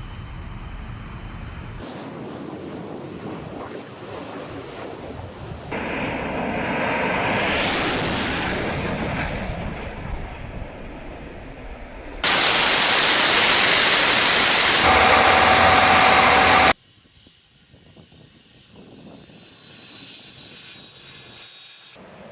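Military jet aircraft taking off, heard as a dense jet-engine rush across several spliced clips that change abruptly. The loudest stretch comes in the middle, and part of it carries a steady tone.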